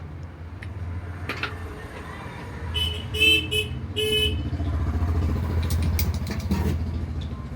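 Motorcycle engine, a Bajaj Platina's single-cylinder four-stroke, running steadily with a low rumble. About three seconds in, a few short horn-like toots sound over it.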